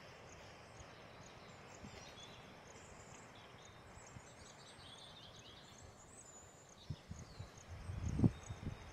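Rural outdoor ambience: a faint hiss with birds chirping and a high chirp repeating at an even pace. About seven seconds in, low rumbling thumps start, the loudest just before the end.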